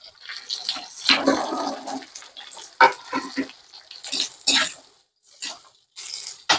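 Chopped onion, green chillies and curry leaves sizzling as they go into hot oil in the pan and are stirred, with a few sharp knocks in between.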